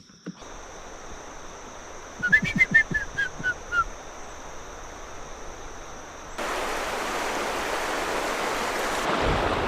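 River water running steadily, louder from about two-thirds of the way in. A short run of descending chirps and a few light knocks come between about two and four seconds in, over a thin high steady tone.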